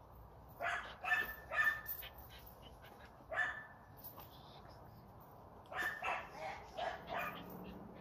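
A dog barking in short, sharp barks: three in quick succession about a second in, a single bark near the middle, then a run of five near the end.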